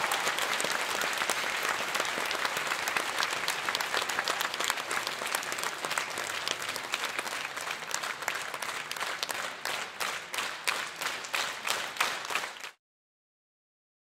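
Crowd applause dying down, thinning out into a few scattered separate claps, then cutting off suddenly near the end.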